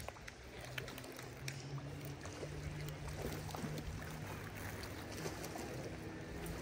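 A motorboat's engine drones steadily on the river, a low hum that grows a little stronger about a second in. Faint clicks and scrapes of a knife filleting sockeye salmon sound over it.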